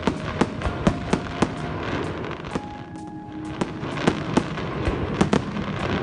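Fireworks going off: aerial shells bursting in an irregular string of sharp bangs, often several a second, over a continuous background of smaller pops.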